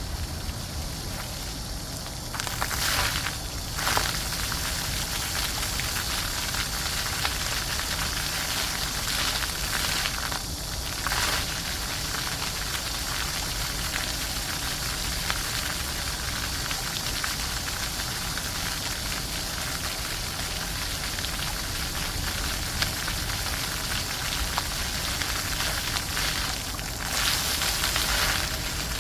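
Floor fountain jets splashing back down onto the ground: a steady rush of falling water, swelling louder briefly about three seconds in and again near the end.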